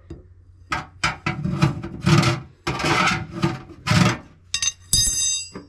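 A long drill bit rubbing and scraping in the grommeted hole through a metal panel as it is pushed and pulled by hand to fish a cable through. It makes a quick run of short rasping strokes, then a few high squeaks near the end.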